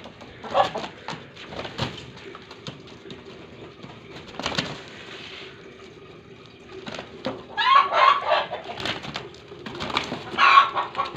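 Two aseel chickens fighting: scuffling feet and flapping wings, with loud squawking calls about eight seconds in and again near the end.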